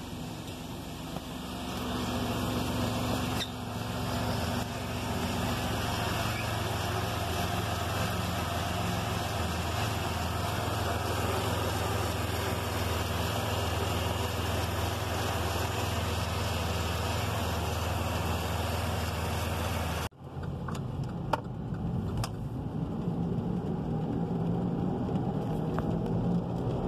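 2007 Chevrolet Equinox driving, with steady engine and road noise and no clanging from the front, its transfer case now running front-wheel drive only with the ring gear removed. About twenty seconds in, the sound cuts off abruptly and resumes with a few light clicks.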